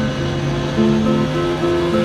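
Harp played, plucked notes that step up and down in pitch and ring on.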